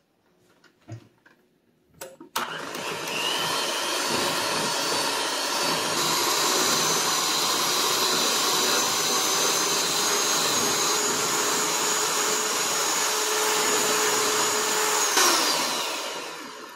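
Electric hand mixer running, its beaters whirring through cream cheese and sweetened condensed milk in a glass bowl. It starts about two seconds in after a couple of small clicks, runs steadily, then winds down with a falling pitch and fades near the end.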